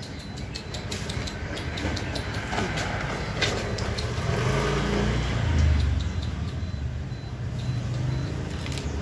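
A motor vehicle passing by, its low engine rumble swelling to a peak a little past halfway and then fading. Scattered sharp clicks are heard over the first few seconds.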